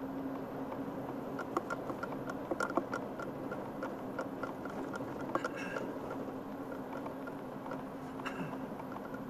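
Car driving, heard from inside the cabin: steady engine and road noise with a low hum, and a run of small clicks and rattles from about one and a half to three seconds in, with a few more later.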